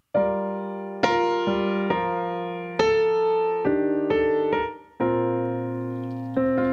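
Roland RD-700GX digital stage piano playing a slow solo intro of sustained chords, about one a second, each struck and left to ring.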